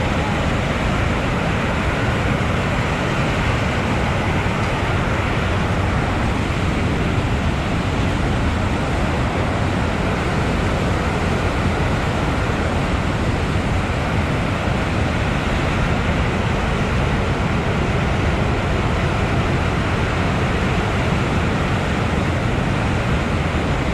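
Steady roar of a river rushing through a narrow rock chasm.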